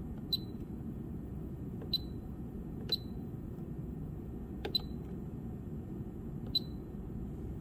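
Siglent SDS1072CML+ digital oscilloscope giving short high key-press beeps as its front-panel buttons are pressed: five beeps at uneven intervals, each starting with a faint click, over a steady low background hum.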